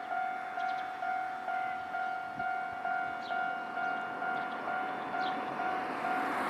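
Japanese level-crossing warning bell ringing over and over, an electronic two-tone ding about twice a second. Near the end the rumble of an approaching train starts to rise under it.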